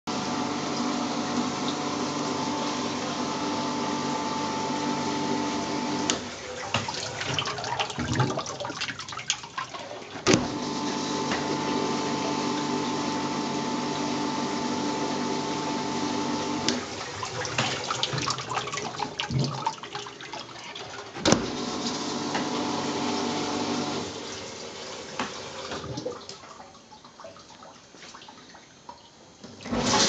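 Washrite Proton undercounter commercial dishwasher running: a steady pump hum with water spraying inside. It breaks off twice into irregular splashing and restarts each time with a sharp click, then dies away near the end.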